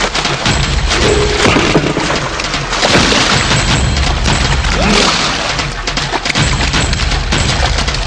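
Fight sound effects from a film: continuous splashing and spraying water, with heavy booming thuds of blows landing at intervals.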